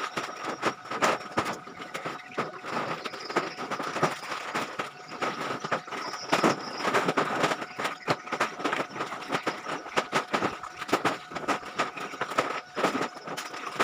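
Continuous clatter and rustling of sacks of plastic scrap being handled and heaved up onto a truck, with many irregular knocks and thumps over a faint steady hum.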